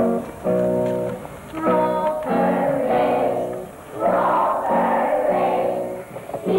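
A group of children singing together over instrumental music that plays held chords in short phrases; the voices come in strongly from about two seconds in.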